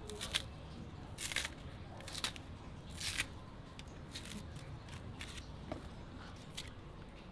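Kitchen knife scoring plantain skins and the peel being pulled away: a series of short, crisp cutting and tearing scrapes about once a second, louder in the first half and fainter later.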